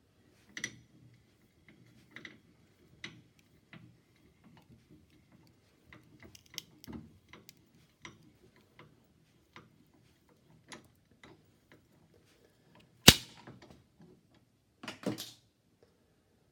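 Scattered small clicks and taps of a mobile phone being pressed and broken apart, with one sharp loud crack about thirteen seconds in and a short crackle about two seconds later.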